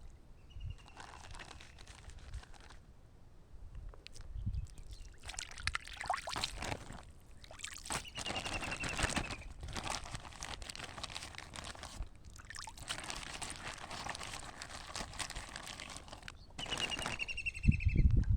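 Water splashing and trickling in uneven spells as flour bait is thrown into a pond. A short high whistling tone comes three times.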